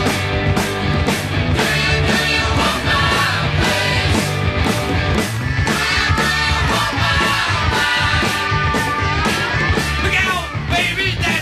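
Loud rock music with a steady drum beat and guitar.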